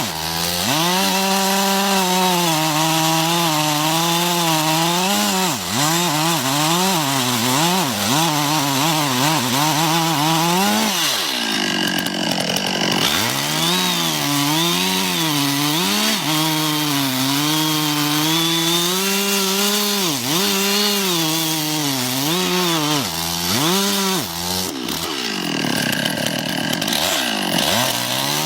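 Chainsaw cutting wood, its engine pitch rising and falling over and over as it is throttled and loaded in the cut. Twice, about eleven and twenty-five seconds in, the engine note drops lower for a couple of seconds.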